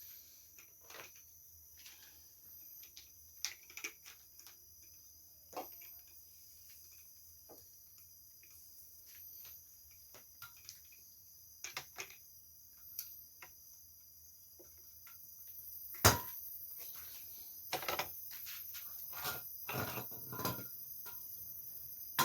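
Scattered clicks, taps and knocks of objects being handled, with a sharper click about sixteen seconds in and a busier run of knocks after it. A steady high chirring, like crickets, runs underneath. No angle grinder is running.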